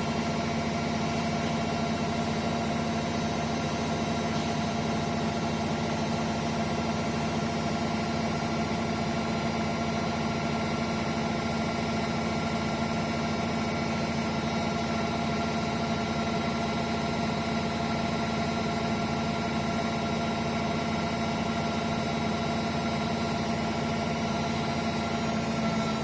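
Hotpoint Ariston washing machine spinning its drum at a steady high speed in the final spin of a quick 60 wash: a constant motor whine over a low hum.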